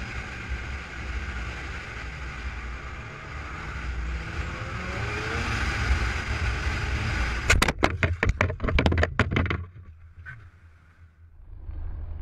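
Wind rush and engine noise from a motorcycle riding fast past a line of queued cars. About eight seconds in comes a quick run of sharp knocks and bangs lasting about two seconds. After a short lull, a steady low vehicle hum takes over.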